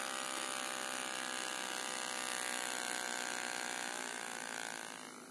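Small 3-volt brushed DC motor running at full speed on 8 volts from a PWM speed controller, well beyond its rating, making a steady high whine. About four seconds in it is turned down, and the whine fades and changes pitch as the motor slows.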